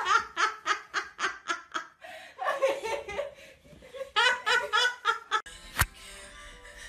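A person laughing hard in rapid, repeated bursts, breaking off briefly around the middle and then resuming. A single sharp click comes near the end.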